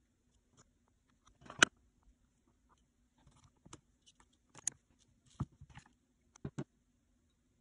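Light, scattered taps and clicks of a metal blade and clay tools being picked up and set down on a plastic cutting mat, the sharpest about one and a half seconds in, over a faint steady hum.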